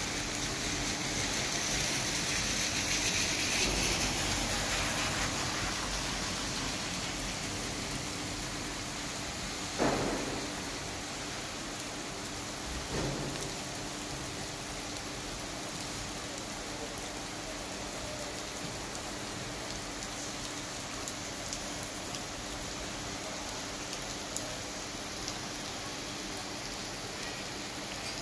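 Steady rain falling on a wet asphalt road and pavement, an even hiss of drops, a little stronger in the first few seconds. About ten seconds in a single sharp thud stands out, with a fainter one about three seconds later.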